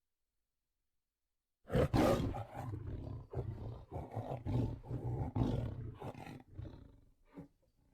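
Tiger growling. After nearly two seconds of silence it starts suddenly and loud, then goes on as a series of rough pulses about half a second apart that fade out near the end.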